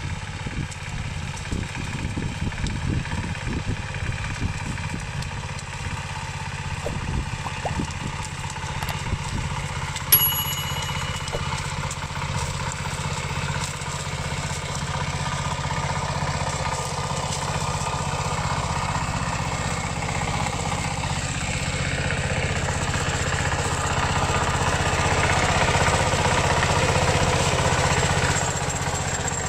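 Diesel engine of a Dongfeng two-wheel paddy tractor running steadily, with one sharp metallic click about ten seconds in. The engine grows somewhat louder in the last third.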